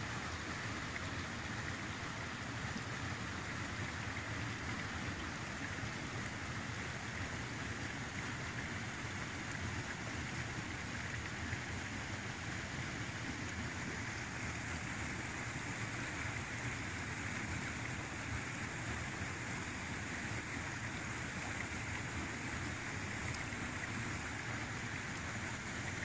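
River water rushing over a low ledge of rocks in a small cascade: a steady, even rush with no change in strength.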